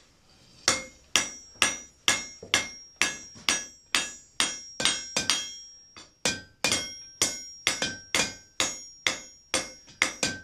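Blacksmith's hand hammer striking hot iron on an anvil, about two blows a second, each with a bright metallic ring, with a brief pause about six seconds in: forging the stock for a rose head nail.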